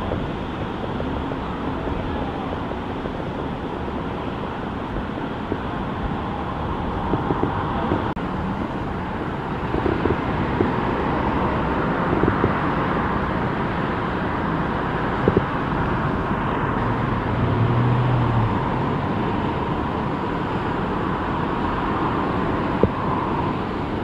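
Steady outdoor roar of open-air ambience, with a few faint clicks and a brief low hum about three-quarters of the way through.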